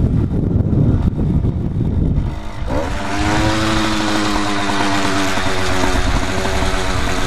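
Wind buffeting the microphone, then about two and a half seconds in the motorized bicycle's 80cc two-stroke engine picks up with a quick rise in revs and runs at a steady pitch.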